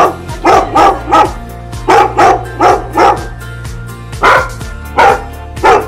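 A two-year-old Goldendoodle barking repeatedly in quick runs of two to four barks, with a short pause in the middle, over background music. It is the territorial barking at people that his owner describes.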